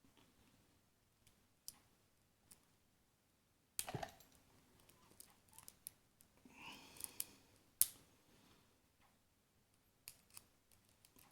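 Small metal clicks and taps from tools working at a euro lock cylinder while trying to push its core out. A loud click comes about four seconds in, a brief scraping follows around seven seconds, and a sharp click comes just before eight seconds.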